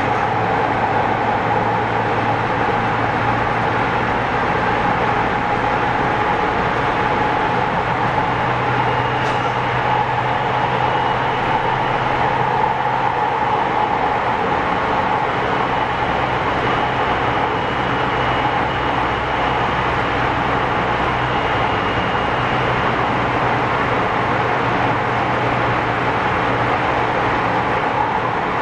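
Running sound inside a JR West 207 series 1000-subseries electric train, motor car KuMoHa 207-1001: a steady rumble of wheels and running gear with a steady hum. A faint high tone comes in about a third of the way through and fades out later.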